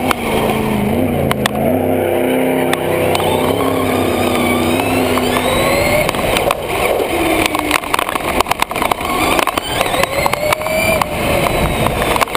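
Traxxas Slash RC truck running over pavement, heard from on board: its electric motor whines, rising and falling with speed, with many sharp knocks and rattles through the second half as the truck bounces. A drift car's engine revs in the background, most clearly in the first few seconds.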